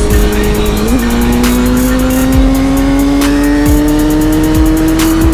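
Kawasaki ZX-10R inline-four sport-bike engine pulling hard at highway speed, its note climbing slowly and steadily in pitch as the bike accelerates, with a brief jump in pitch about a second in.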